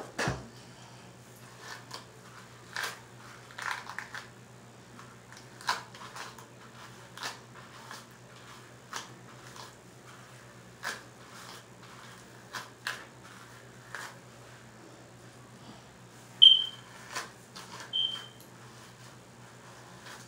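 A comb and fingers working through natural hair: scattered scratchy rustles and small clicks over a steady low hum. Near the end come two short high beeps about a second and a half apart, the loudest sounds.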